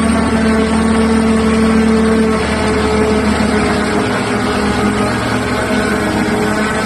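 Heavy mining excavator's diesel engines running steadily, a loud drone with a held hum that eases slightly a little over two seconds in.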